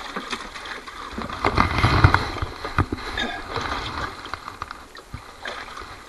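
Scattered knocks and clicks of handling in a fishing boat, with a heavier thump about two seconds in.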